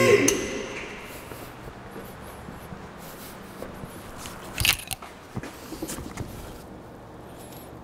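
Vehicle lift's motor running briefly and cutting off just after the start, then a sharp metallic clunk about four and a half seconds in, followed by a few lighter clicks and scrapes.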